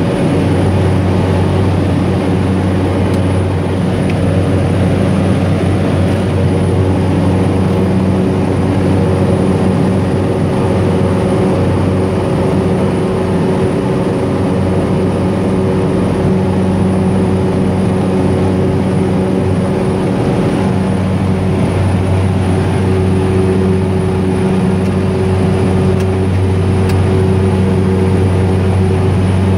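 Single-engine propeller aircraft's engine and propeller droning steadily in flight, heard from inside the cockpit: a constant low hum with a few steady higher tones over cabin noise, no change in power.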